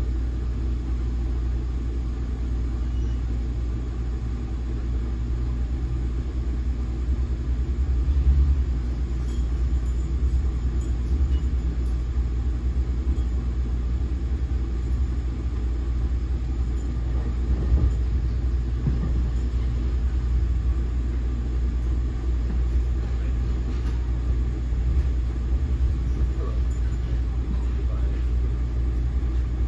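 Inside a moving NJ Transit Multilevel passenger coach: a steady low rumble of the wheels on the rails, with a brief louder jolt about eight seconds in and another near eighteen seconds.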